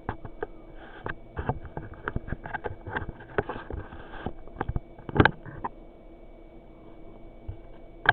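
Handling noise: a run of irregular clicks and taps from equipment being worked by hand, with one louder knock about five seconds in, over a faint steady high-pitched electronic tone.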